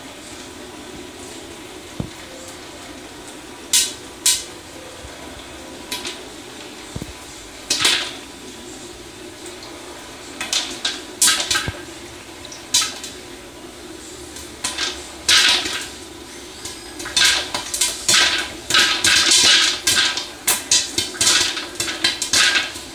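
Popcorn popping in a West Bend Stir Crazy electric popper: a few single sharp pops at first, coming faster and closer together in the last several seconds. Under them runs the steady hum of the popper's motor turning its stirring rod.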